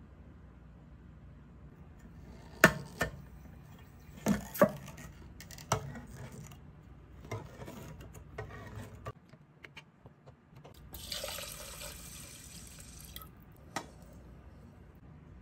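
A few sharp knocks and clatters of kitchenware, then the small ticks of a hand-crank can opener on a can of chicken broth, and the broth poured from the can over the rice in a rice cooker's inner pot for about two seconds, ending with one more click.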